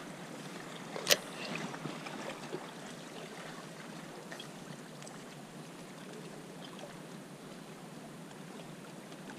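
Steady outdoor hiss of wind and water lapping at the rocky shoreline, with one sharp click about a second in and a few fainter ticks just after.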